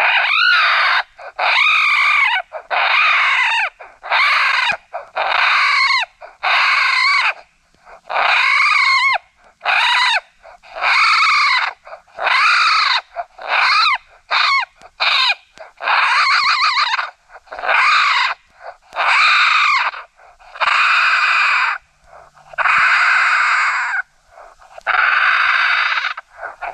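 Raccoon brawl call: a run of harsh squalling screams like grown raccoons fighting, about one a second, each rising and falling in pitch. They turn rougher and longer in the second half.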